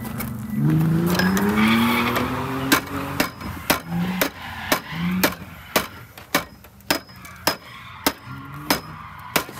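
A run of sharp, evenly spaced knocks, about two a second, starting a little under three seconds in, each with a faint high ring. Before them, a pitched sound rises and wavers for about two seconds.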